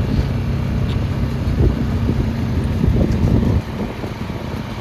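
Small vehicle engine running steadily under way, with wind buffeting the microphone; it gets quieter about three and a half seconds in.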